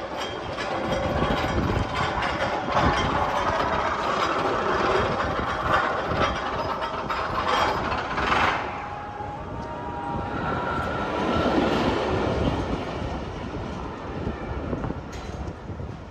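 Magnum XL-200 steel hyper coaster train running along its track, a heavy rumble with a steady rattling clatter that swells and eases as it passes.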